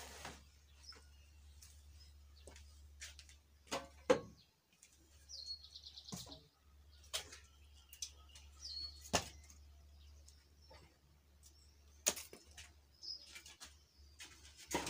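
Irregular knocks and snaps of firewood sticks being handled and laid on a three-stone hearth fire. A bird chirps three times in the background, each call a short quick trill.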